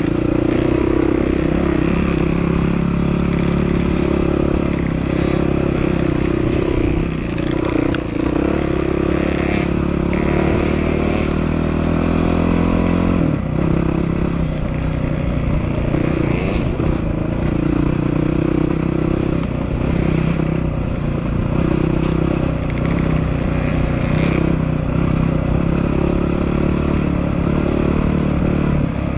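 Dirt bike engine running under way on a trail, its pitch rising and falling as the rider works the throttle. About halfway through the pitch climbs steadily, then drops back sharply as the rider shifts gear.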